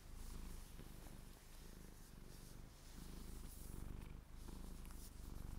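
A cat purring close to the microphone, a fine rapid rattle in breaths of about a second each, with faint rustling of hands rubbing cotton socks.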